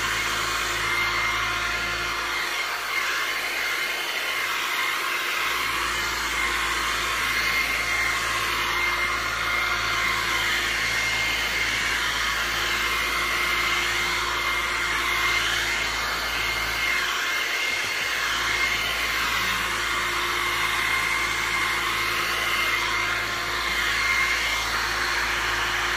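Small handheld hair dryer running steadily with a thin high whine, blowing air onto a poodle's freshly bathed coat to dry it.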